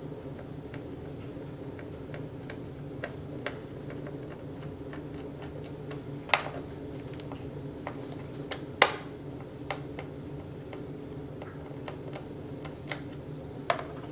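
Small scattered clicks and ticks of a screwdriver working the screws out of a laptop's plastic underside, over a steady low hum. Two clicks are louder, about six and nine seconds in.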